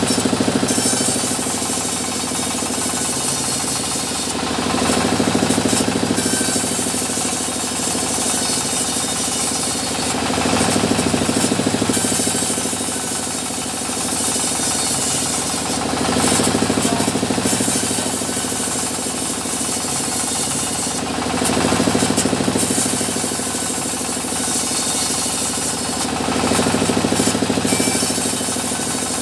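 Engine-driven sawmill saw running steadily while cutting mahogany. The sound grows louder and harsher about every five to six seconds as the blade bites through the wood.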